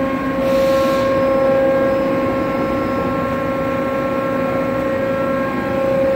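Tarus CNC gun drill running under power: a steady machine hum with one strong pitch and a few fainter higher tones. A brief hiss comes about half a second in.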